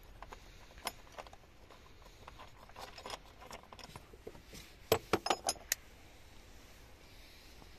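Hands handling small parts and tools in a car's engine bay: scattered light clicks, then a quick run of five or six sharp metallic clinks about five seconds in.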